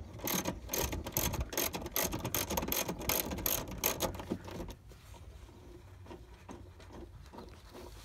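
Socket ratchet wrench clicking rapidly as it works a seat-track mounting bolt. The clicking stops a little under five seconds in, leaving only faint handling noise.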